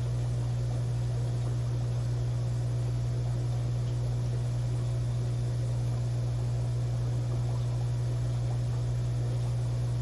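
Aquarium pump humming steadily, one constant low tone with a faint hiss above it.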